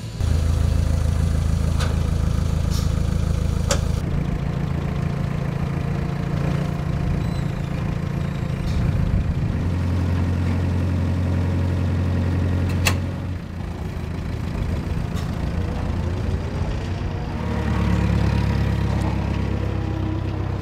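Toyota forklift engine running under load while carrying a truck cab, its pitch rising and falling with throttle near the end, with a few sharp clanks.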